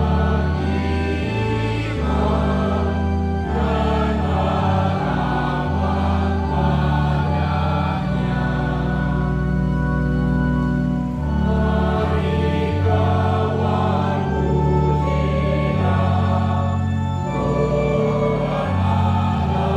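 Mixed choir of men and women singing a hymn together, over sustained low bass notes that change every second or two.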